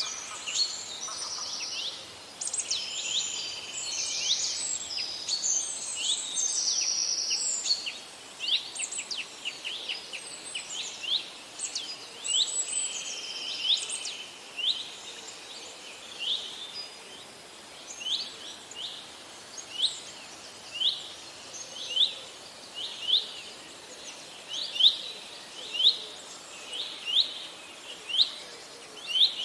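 Birdsong: several birds chirping and trilling together at first, then one bird repeating a short sweeping call about once a second.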